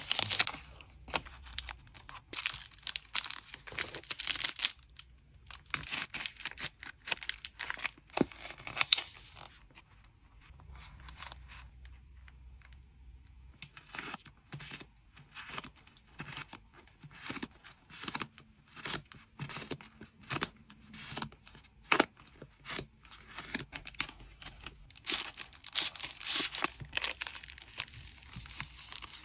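Hands packing trading cards: packing material being torn and crinkled in noisy spells, with light taps and clicks between. The noisiest spells come in the first few seconds and again near the end.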